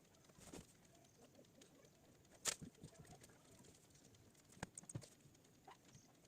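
Near silence: room tone with a few faint, sharp clicks, the loudest about two and a half seconds in and another near the middle.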